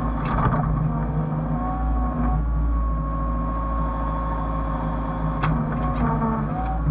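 Hyundai excavator's diesel engine running steadily under hydraulic load, with a whine whose pitch shifts twice as the hydraulics work. A few short sharp knocks sound near the start and about five and a half seconds in.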